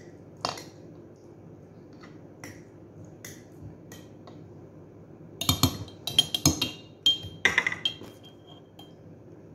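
Metal spoon clinking against glass jars while tapioca pearls are scooped out. A few scattered taps, then a quick run of sharp clinks with brief glassy ringing about five to eight seconds in.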